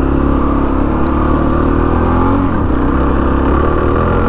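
Single-cylinder engine of a Suzuki DR-Z400S dual-sport motorcycle running as it is ridden slowly along a dirt road, its pitch rising and falling a little with the throttle and dipping briefly about halfway through.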